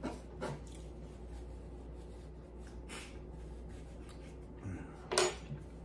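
Quiet handling of a paper napkin: soft rustles and a few light ticks as it is picked up and wiped across the face, over a steady low hum. A sharper, louder rustle comes about five seconds in.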